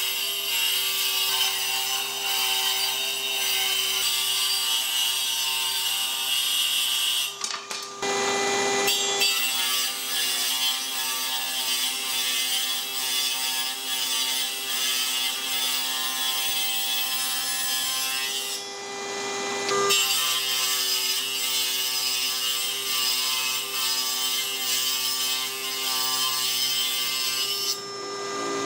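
Table saw running, its blade ripping thin strips of hardwood: a steady motor whine under the loud hiss of the cut. The cutting noise stops briefly twice while the blade keeps spinning, between passes.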